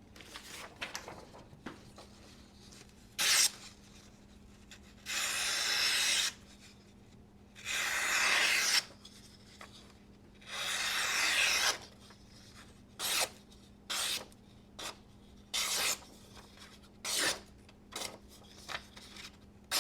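Folding knife blade with a flat-ground S90V edge slicing through test material. There are three long drawn cuts, about five, eight and eleven seconds in, and several short quick cuts besides.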